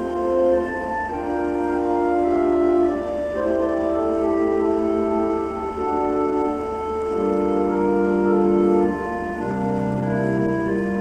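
Organ playing slow, sustained chords, the notes shifting every second or two, with deeper bass notes coming in about seven seconds in.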